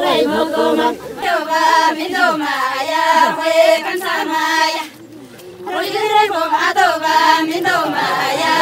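A group of Tamang women singing a mendomaya folk song together, breaking off briefly about five seconds in before the next line starts.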